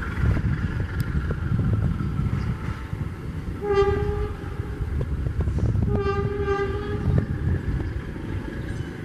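Passenger train rolling away with a steady low rumble and scattered wheel clicks, while a train horn sounds two blasts: a short one about three and a half seconds in and a longer one about six seconds in.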